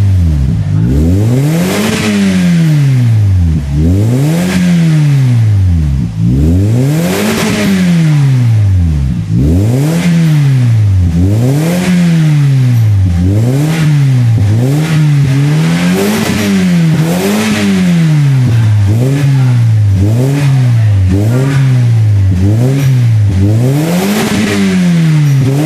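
Toyota Vios four-cylinder engine revved repeatedly through an aftermarket exhaust, the note rising sharply and dropping back each time. The blips come quicker and shorter in the second half.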